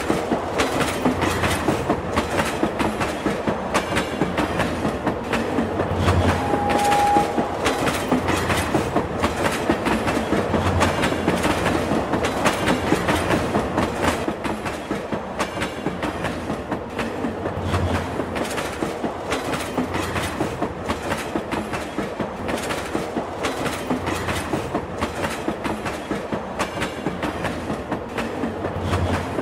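Passenger train running at speed, its wheels clattering over the rail joints in a rapid clickety-clack with dull low thumps every second or two, heard from inside a moving coach. A short steady high tone sounds once, about six seconds in.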